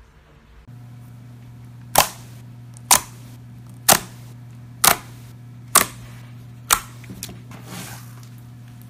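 Blue glitter slime being poked and pressed with fingers, trapped air giving six loud, sharp pops about a second apart, then a few softer crackles. A low steady hum runs underneath.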